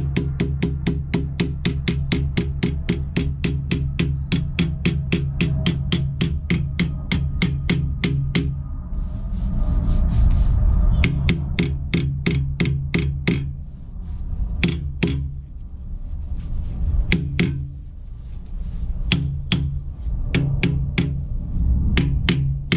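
Hand hammer striking the steel of a post leg vice, with a metallic ring on each blow: a fast, even run of about five blows a second for the first eight seconds, then shorter bursts of blows with pauses between them.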